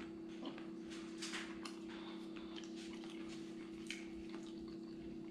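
Faint chewing and mouth clicks from eating a crispy-crusted pizza slice, with a few scattered light ticks at uneven intervals, over a steady low hum.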